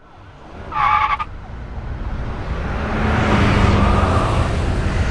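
Road and traffic noise with a steady low rumble. A short buzzy tone sounds for about half a second about a second in, and the noise swells from about two seconds on.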